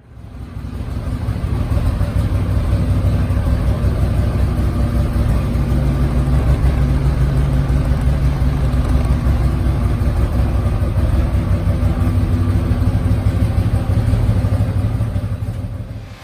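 Can-Am Maverick Sport XMR 1000R's Rotax V-twin engine running steadily. It fades in over the first couple of seconds and drops away near the end.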